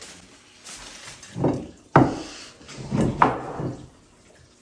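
Several household knocks and thuds, the sharpest about two seconds in, then quiet.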